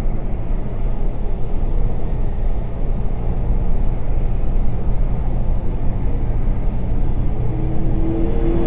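Steady engine drone and road noise inside a vehicle cab cruising at highway speed.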